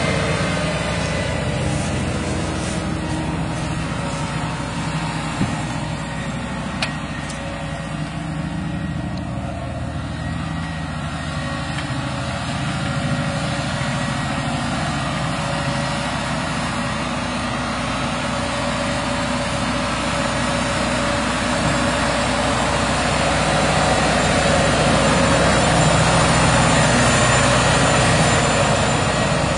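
Large farm tractor's diesel engine running steadily while ploughing, growing louder for a few seconds near the end.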